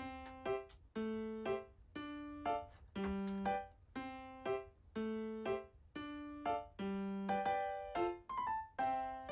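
Background music: a bouncy tune of struck notes that ring and fade, repeating a short figure about once a second.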